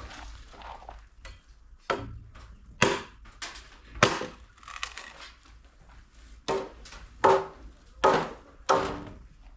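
Panga (machete) chopping into wood, about seven uneven strikes with splintering. The blade is very blunt.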